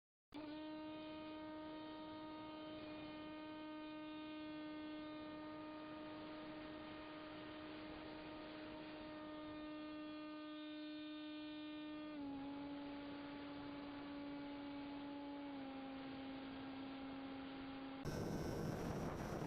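Steady electric hum of the RC plane's motor, one pitch with a row of overtones that steps slightly lower twice. About a second and a half before the end it gives way to wind rushing over the microphone.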